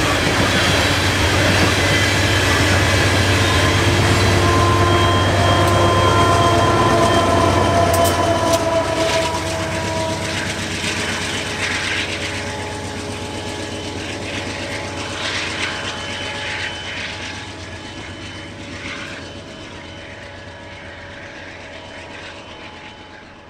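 Union Pacific coal train's hopper cars rolling past: steel wheels clattering on the rails, with a thin squeal over the first half, scattered clicks in the middle, and the sound growing steadily quieter until it fades out at the end.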